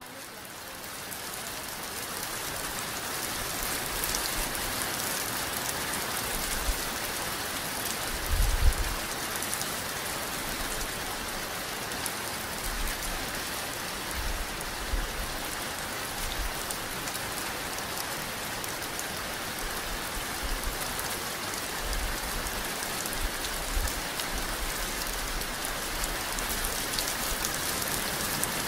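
Steady rain, an even hiss with fine drop ticks, fading in over the first couple of seconds. A few brief low thumps come through, the strongest about eight seconds in.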